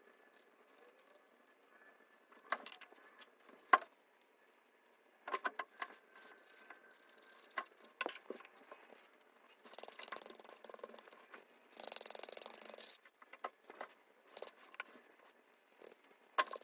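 Paintbrush strokes scrubbing across textured canvas paper, with two longer scrubbing passes about ten and twelve seconds in, and scattered sharp taps and clicks of the brush and paint.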